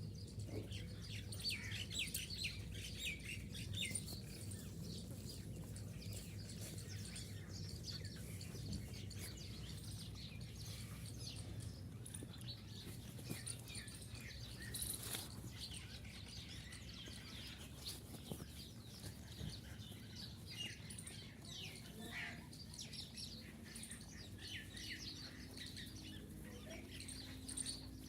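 Many small birds chirping continuously, over a steady low hum.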